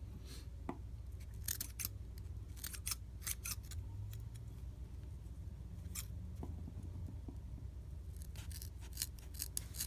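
Scissors snipping through several folded layers of tulle, trimming a curved edge: short snips in small runs with pauses between.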